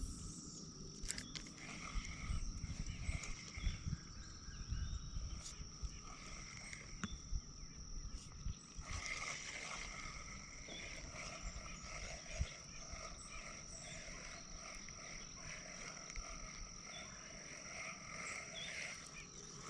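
Frogs croaking in a pulsing chorus that grows busier about halfway through, over a steady high-pitched tone. There are low bumps and rumbles in the first half.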